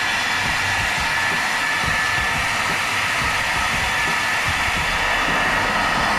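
Handheld hair dryer blowing steadily on its second speed setting: an even rush of air with a steady high motor whine.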